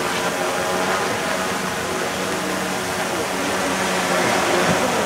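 Police multirotor drone hovering overhead, its propellers giving a steady hum with several pitches.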